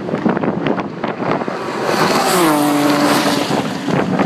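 Race car engines running on the circuit. One engine's note drops in pitch about two seconds in, then holds steady.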